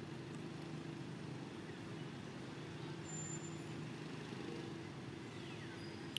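A steady low hum of a running engine, with no change in pitch or level.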